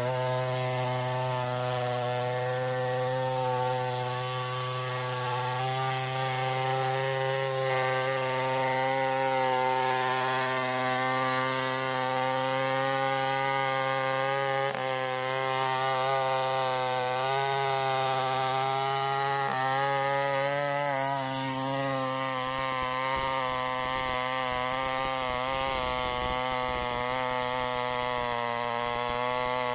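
Stihl 070 two-stroke chainsaw running steadily while cutting into a thick tree trunk. Its engine note dips and shifts briefly about fifteen and twenty seconds in.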